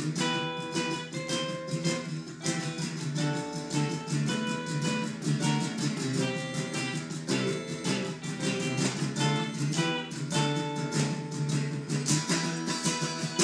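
Strummed acoustic guitar playing chords, with frequent strum strokes and no break.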